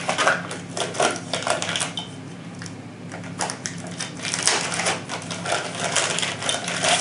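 Clear plastic bag crinkling and crackling as it is pulled off a forend tube by hand, a dense run of crackles that thins out briefly and then picks up again.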